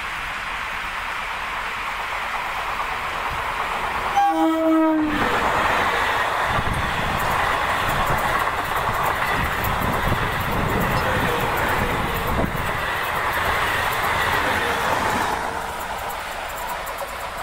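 Train passing at speed. Its horn sounds once for about a second as it nears, slightly dropping in pitch. Then about ten seconds of loud rushing noise with rapid clicking of wheels over the rails go by and fade near the end.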